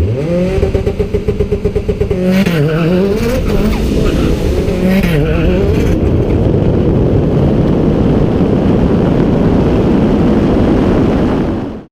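Turbocharged four-cylinder engine of a Mitsubishi Evo drag car, held at a steady pitch with a choppy pulsing on the launch. It then accelerates hard, and two gear shifts drop and rebuild the pitch. A dense rush of engine and tyre noise follows and cuts off abruptly near the end.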